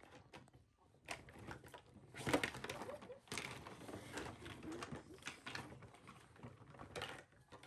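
Light plastic clacks and knocks as red plastic toy bowls and a scoop are handled on a wooden table, a few separate taps, the loudest about two seconds in. A few short, soft vocal sounds come in the middle.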